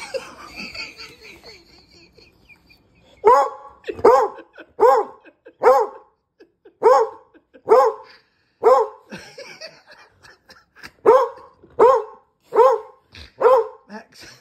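A medium-sized dog barking over and over, starting a few seconds in, about one bark a second with a short pause in the middle. He is barking at a cat that is keeping him from his ball.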